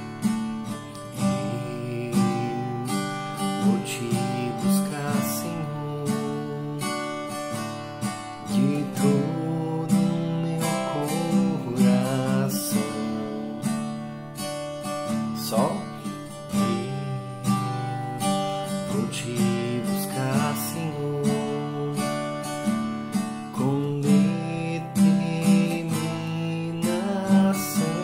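Acoustic guitar strummed in a steady rhythm, changing between open chords in the key of G (G9, D, C).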